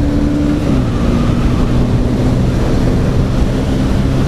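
Honda CB300's single-cylinder engine running steadily as the motorcycle cruises, with wind noise on the microphone. The engine's pitch dips slightly about half a second in.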